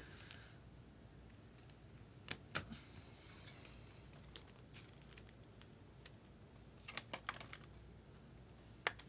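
A few scattered light clicks and taps over a quiet room, irregular rather than a steady rhythm, with the sharpest about two and a half seconds in and near the end.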